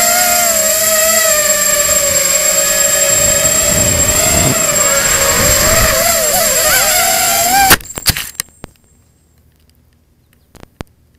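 Small quadcopter's electric motors and propellers whining in flight, picked up by its onboard camera, the pitch wavering up and down with the throttle. About eight seconds in it crashes with a sharp knock and a few smaller ones, and the motors cut out, leaving quiet broken by a couple of faint clicks.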